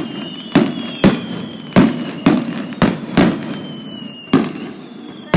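Aerial fireworks shells bursting in quick succession: about nine sharp bangs at uneven gaps, roughly two a second, each followed by a brief rumbling echo, with a faint thin high whistle drifting down in pitch underneath.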